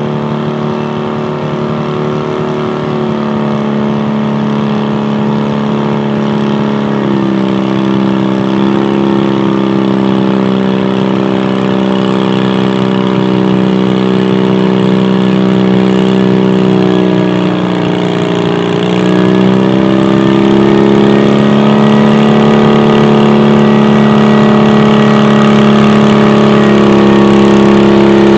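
Garden tractor engine running hard under load as it pulls a weight-transfer sled, one steady drone that grows louder as it comes closer. The pitch sags briefly about a quarter of the way in and again about two-thirds in as the engine bogs under the load, then climbs back.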